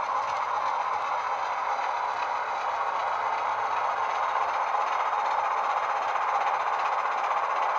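Two model Class 26 diesel locomotives running together on their sound decoders, playing a steady Sulzer diesel engine sound through small onboard speakers, thin and with hardly any bass. It grows slightly louder as the locos approach.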